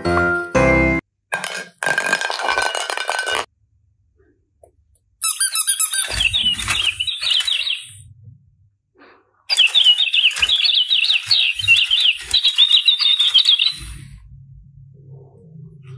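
High-pitched squeaking in rapid wavering chirps, in two runs of a few seconds each with a silent gap between.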